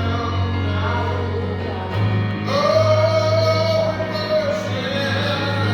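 Gospel music with singing voices over a steady bass, one long note held through the middle.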